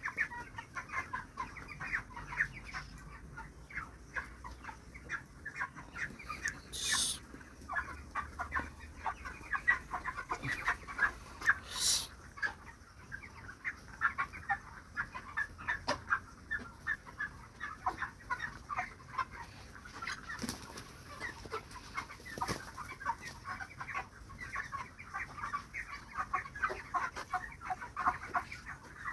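A large flock of 42-day-old broiler chickens clucking and chirping, many short overlapping calls throughout, with two brief louder hissing noises partway through. The calls come with no respiratory rattle, which the farmer takes as a sign that the flock has recovered from chronic respiratory disease (CRD).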